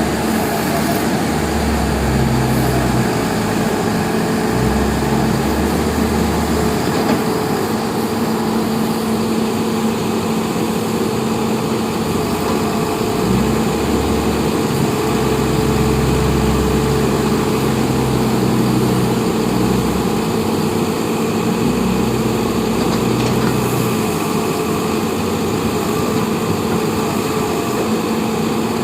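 An engine running steadily, with a deep rumble that swells and fades every few seconds.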